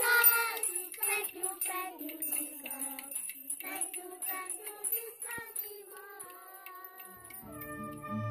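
Children singing together, their voices growing fainter toward the middle. About seven seconds in it cuts to recorders and an acoustic guitar playing a tune.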